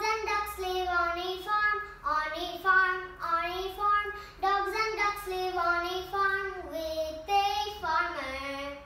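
A young girl singing a nursery rhyme solo, with no instrument heard, in phrases of held, gliding notes broken by short breaths.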